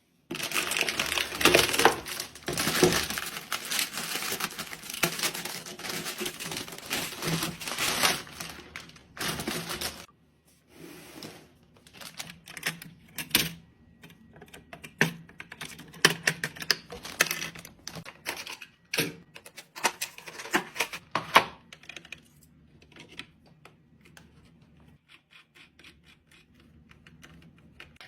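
Clicks, taps and rattles of plastic and metal computer parts being handled and fitted together during a PC build. The clicking is dense at first and thins out after about ten seconds, with light, evenly spaced ticking near the end.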